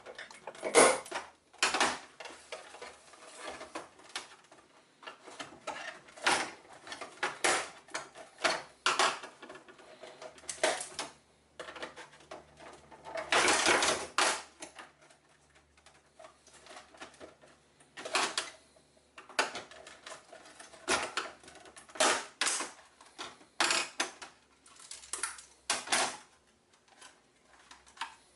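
Hammer and chisel knocking at a Toshiba Touro external hard-drive housing to break it open: irregular sharp knocks and clatters, with a denser burst of blows about halfway through.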